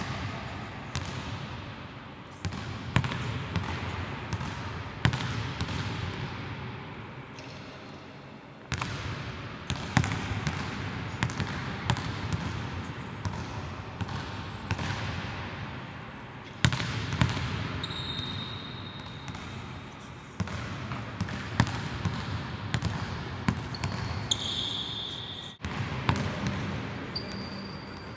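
Basketball being dribbled on a hardwood court in a large, empty arena, each bounce followed by a hall echo. Sneakers squeak briefly on the floor a few times in the second half.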